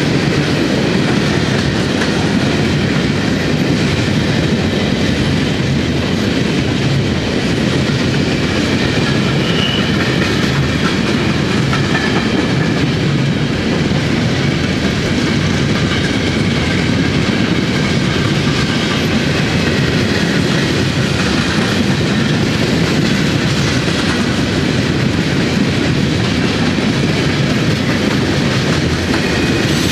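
Freight train cars, here empty flatcars, rolling past close by: a steady, loud rumble and clatter of steel wheels on the rails that holds unbroken throughout.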